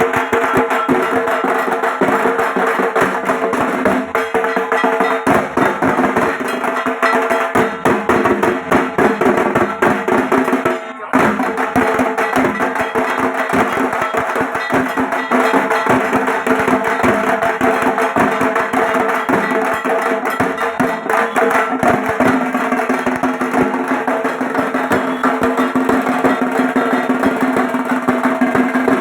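Dhak, the Bengali barrel drum, beaten with wooden sticks in a fast, continuous puja rhythm. A steady ring is held under the strokes, and there is a momentary break about eleven seconds in.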